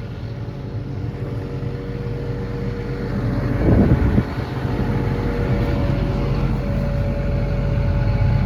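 Cummins diesel engine of an XCMG XE210CU excavator running steadily, growing slightly louder toward the end, with a brief louder noise about four seconds in.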